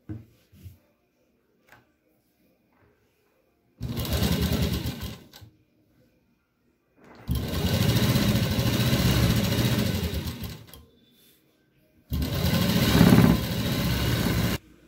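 Seiko sewing machine stitching through suit fabric in three runs: a short one of about a second and a half, a longer one of about three and a half seconds, and a last one of about two and a half seconds near the end. Each run starts and stops abruptly.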